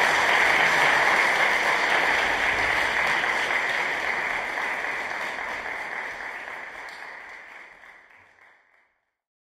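Audience applauding, the clapping fading out steadily until it is gone just before the end.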